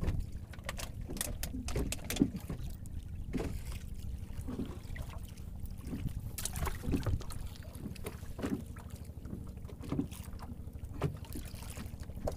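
Scattered sharp knocks and clicks of fish and gear being handled on the deck of a small fibreglass fishing boat, over a low steady rumble.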